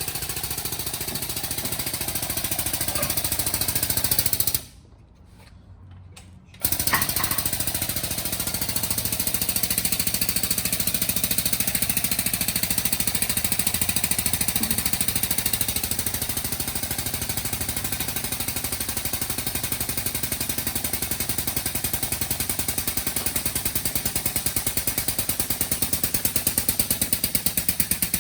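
Air-powered hydraulic pump of a collision frame machine chattering rapidly and steadily as it pulls the damaged front structure out. It stops for about two seconds around five seconds in, then starts again.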